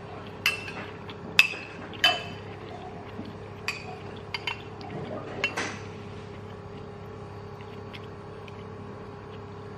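Metal spoon clinking and scraping against a white ceramic bowl while scooping vegetables: about half a dozen sharp, ringing clinks in the first six seconds, then quieter.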